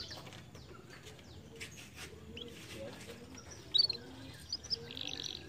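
Canaries chirping: scattered short high chirps, a louder one about four seconds in, and a rapid trill starting just before the end.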